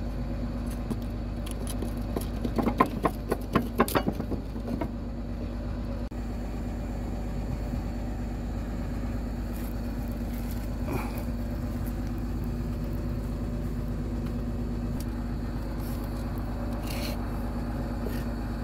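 Excavator diesel engine idling steadily, with a quick run of sharp metallic clinks and knocks about three to four seconds in, from the steel cylinder rod end and linkage being worked by hand. A couple of lighter clinks follow later.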